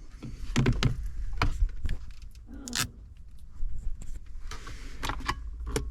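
Handling noises: scattered short clicks and rustles over a steady low rumble.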